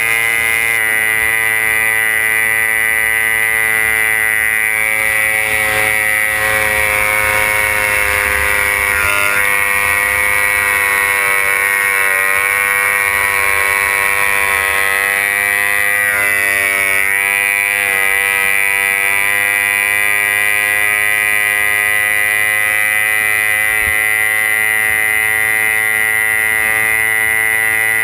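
Racing runabout's outboard engine running flat out at high revs, a steady pitched drone that dips slightly in pitch twice partway through.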